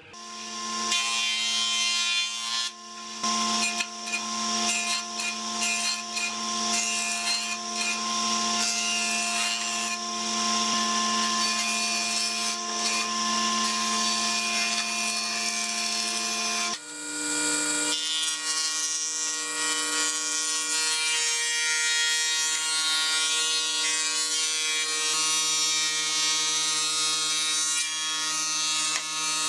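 Combination jointer-planer running, its cutter head shaving boards fed across the bed by hand: a steady machine hum with several held tones under a rough cutting noise. About 17 s in it changes abruptly to a thickness planer running as a board feeds through, steady on a different set of tones.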